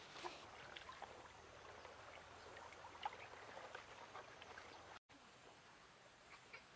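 Near silence: faint outdoor background with scattered small ticks and rustles. The sound drops out completely for an instant about five seconds in, at an edit.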